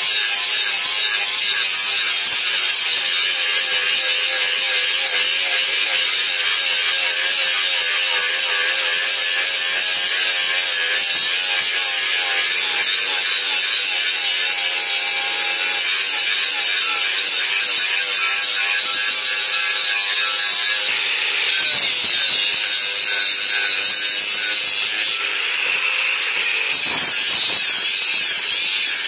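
Handheld electric angle grinder running steadily, its abrasive disc grinding the steel edge of a kukri blade, a continuous loud grinding hiss over the motor's whine. The pitch and texture of the grinding shift a couple of times in the last third.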